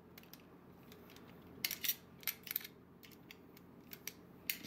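Light metallic clicks and ticks of a small hex key working the little screws inside the steel receiver of an AK-type airsoft electric gun, turned a little at a time. The clicks come scattered, with a bunch about two seconds in and another near the end.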